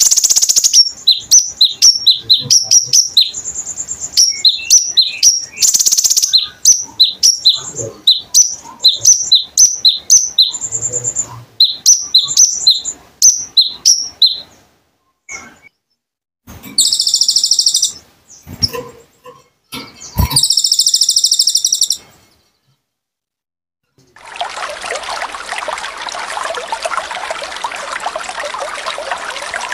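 Konin songbird singing a fast series of high, sharp chirps, about three a second, then two dense buzzy trills after a pause. Near the end the song gives way to a steady trickle of running water.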